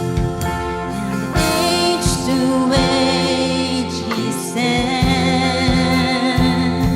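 Live church worship band and singers performing a slow praise song: voices sing over a steady low bass line and a regular drum beat.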